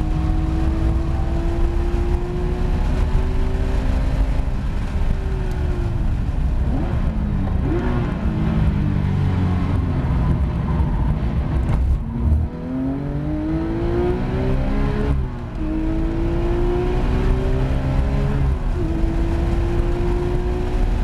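Porsche 911 GT3 RS's naturally aspirated flat-six heard from inside the cabin at track speed: its pitch falls as the car brakes and downshifts for a slow corner, then climbs under full throttle, broken by two quick upshifts in the second half.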